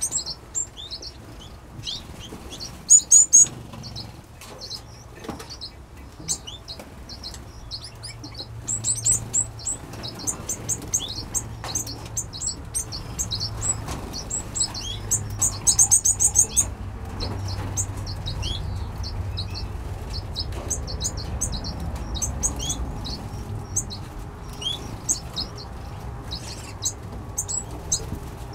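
Mixed aviary of small finches, Gouldian finches among them, chirping continually: many short high chirps and a few quick rattling trills, the loudest about three seconds in, over a low steady hum.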